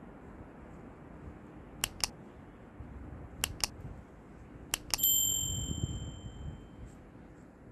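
Subscribe-button animation sound effect: three quick double mouse clicks, then a single bell ding that rings out and fades over about two seconds.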